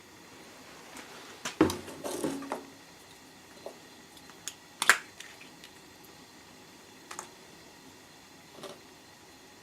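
Scattered light knocks and clicks, a quick cluster of them about one and a half seconds in and a sharp click about five seconds in, with a few fainter ones after.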